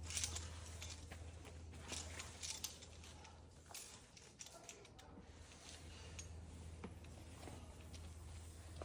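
Faint scattered scrapes and taps of a rock climber's shoes and hands moving on the rock, over a steady low hum.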